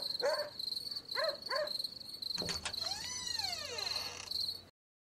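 Crickets chirping in a steady, pulsing trill at night, with a dog barking several times in the first two seconds. About two and a half seconds in there is a click, then a tone that arcs up and falls away, and the sound cuts off shortly before the end.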